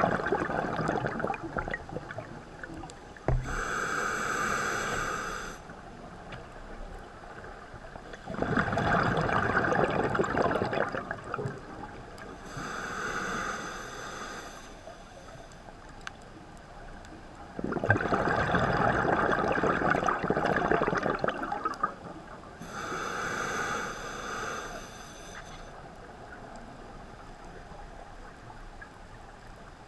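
Scuba breathing through a regulator underwater, three breath cycles: each a long bubbling rush of exhaled air, then a shorter whistling hiss as air is drawn in.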